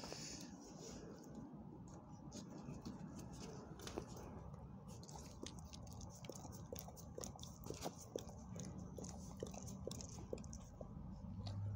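A black dog's mouth and muzzle close to the microphone, making a run of soft, irregular wet clicks like licking or chewing, with faint rustling.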